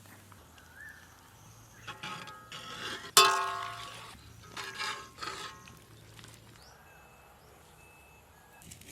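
Metal kitchenware clinking: a few light knocks, then one sharp ringing strike about three seconds in that fades over a second, and more clinks a couple of seconds later.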